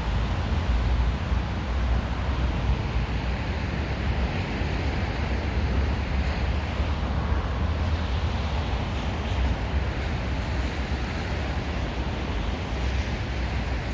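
Wind buffeting the microphone in a snowstorm: a steady rushing noise over a fluttering low rumble.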